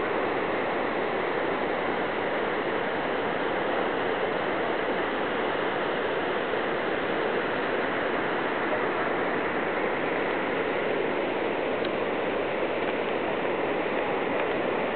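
Steady, unbroken rush of water pouring over Niagara's American Falls.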